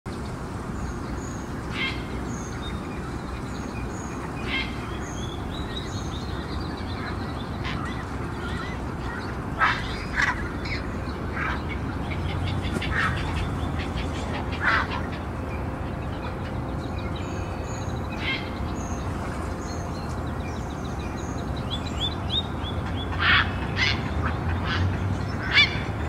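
Short, loud calls of water birds every few seconds over a steady low background rumble, with small songbirds chirping and trilling faintly high above.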